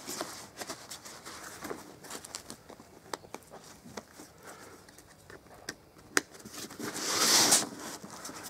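Handling of a padded nylon rifle drag bag: fabric rustling with scattered small clicks and taps, and one louder rasp lasting about half a second, about seven seconds in.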